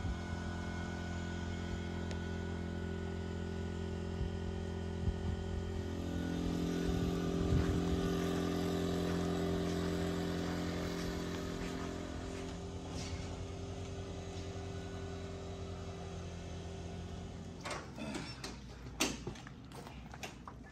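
An engine running steadily, growing a little fuller and louder for several seconds around the middle. A few sharp knocks near the end.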